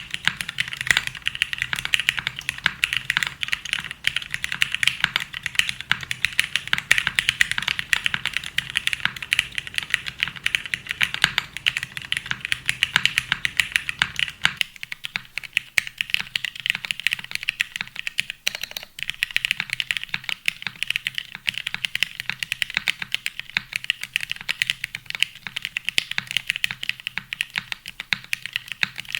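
Rapid, continuous, irregular clicking, many clicks a second. A low steady hum underneath stops about halfway through.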